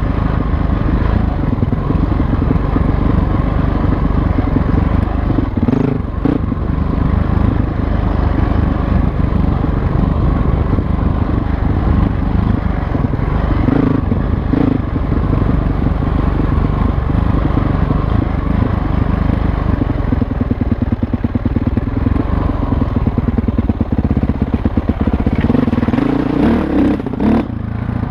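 Dirt bike engine running as the bike is ridden along a trail. About two-thirds of the way through, the engine drops to a slow, even chug with each firing pulse audible, then picks up again near the end.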